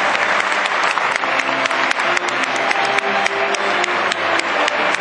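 Crowd applauding steadily, a dense patter of many hands clapping, with music playing faintly underneath.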